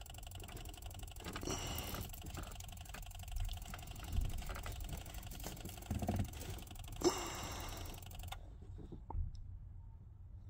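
Small plastic clicks and rustling of a gloved hand working among the relays and wiring of a van's fuse box, over a steady background hiss and hum. The hiss cuts out abruptly about eight seconds in.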